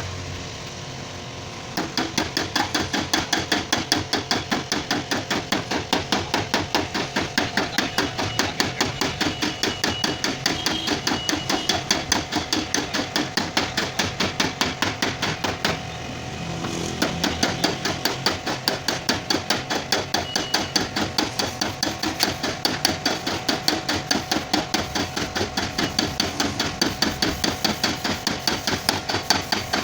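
Rapid, steady hammer blows on a Honda car's dented sheet-metal boot lid, about four a second, as the dent is beaten out. The hammering starts about two seconds in, stops for about a second near the middle, then carries on.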